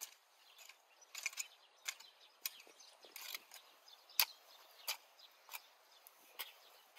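Long-handled garden hoe chopping and scraping into soil in a steady series of short strikes, roughly one every two-thirds of a second.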